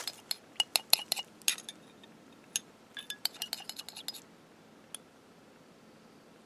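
Small drinking glass clinking in a quick run of sharp, separate clicks over the first four seconds as water is tipped from it onto cut tobacco, with one last click near five seconds.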